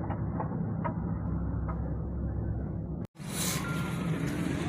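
A car engine running steadily, with a few sharp clicks in the first two seconds. The sound drops out briefly about three seconds in and comes back brighter.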